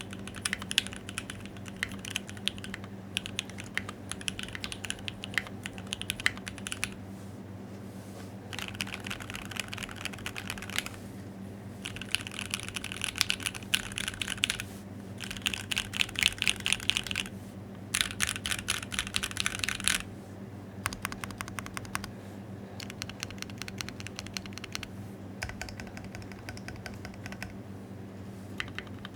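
Typing on a custom Think6.5 V2 mechanical keyboard with an FR4 plate, lubed Tangerine linear switches and PBT keycaps: quick runs of keystrokes broken by short pauses. A fast flurry about two-thirds through stops suddenly.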